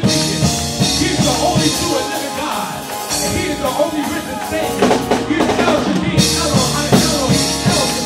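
Live gospel music: a vocal group singing over keyboard and a drum kit, with frequent drum hits and cymbals.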